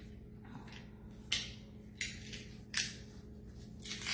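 Fresh garlic cloves cracking and crunching as they are squeezed through a hand-held garlic press, in about four short crackles. The crisp cracking is the sign of fresh garlic.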